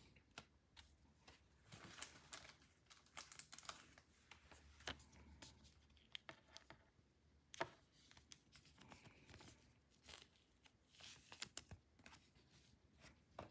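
Faint, scattered rustles and light clicks of glossy trading cards being handled, with a card slid into a clear plastic sleeve.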